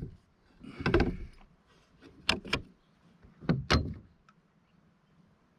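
Sharp knocks and clunks on a plastic fishing kayak: one, a cluster about a second in, then two quick pairs, falling quiet in the last second or so.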